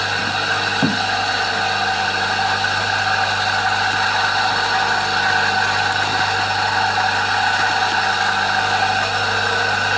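Homemade rice flour mill running steadily on a washing-machine motor, its blade grinding brown rice with a constant electric hum and whir. A single brief knock about a second in.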